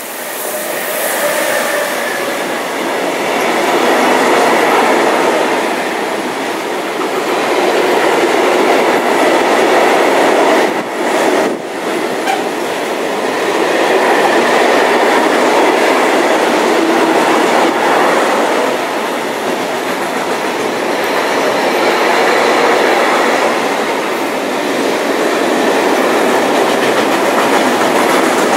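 Long freight train of flat wagons loaded with steel coils passing close by behind an electric locomotive: a continuous loud rolling noise of wheels on rails that swells and eases every few seconds, with a brief dip about eleven seconds in.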